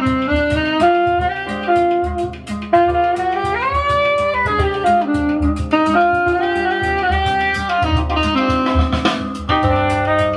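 Jazz music with saxophone over guitar accompaniment, one saxophone note bending upward about four seconds in.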